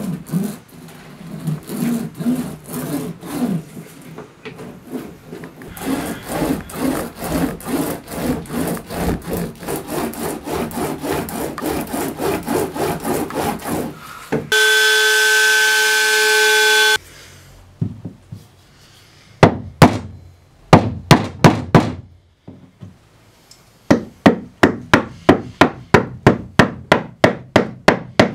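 Rhythmic rubbing strokes of a hand tool over the epoxy-coated fibreglass hull of a plywood canoe. About halfway through there is a steady whine for about two seconds. Near the end comes the loudest part: a hand chisel paring the wooden gunwale in quick, sharp strokes, about three a second.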